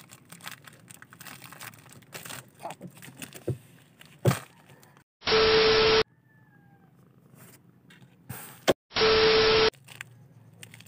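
Two identical harsh buzzing bursts, each under a second long and about four seconds apart, starting and stopping abruptly. Faint clicks and knocks come between them.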